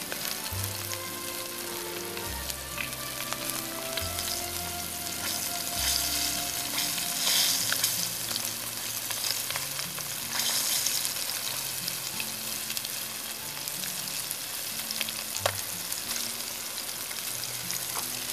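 Floured frog legs frying in bacon grease in a cast-iron skillet over a wood fire: a steady sizzling hiss that swells louder twice around the middle, with an occasional sharp pop.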